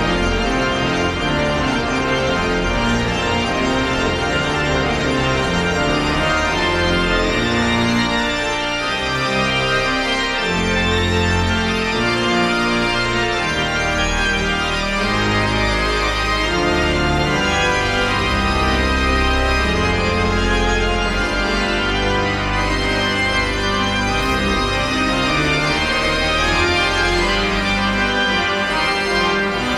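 Pipe organ playing full, sustained chords over deep bass notes, the harmony changing every second or two.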